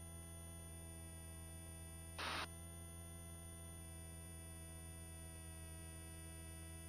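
Faint, steady electronic hum made of many high and low tones, as heard on a helicopter's headset intercom feed with the voice-activated microphones closed. A short burst of rushing noise comes about two seconds in.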